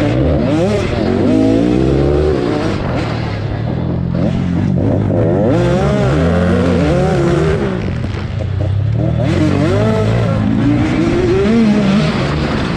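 Several racing dirt-bike engines revving together, their overlapping pitches rising and falling as they accelerate and back off.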